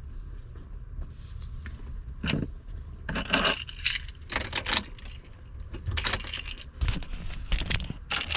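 Small metal items clinking, jingling and scraping as they are handled, in irregular clusters that start about two seconds in, over a steady low rumble.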